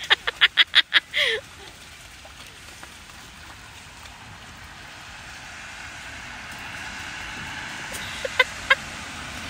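A small child's quick burst of laughter, about seven short pulses in the first second, then a steady splashing hiss of rainwater in a shallow puddle that slowly grows louder, with two short high squeals near the end.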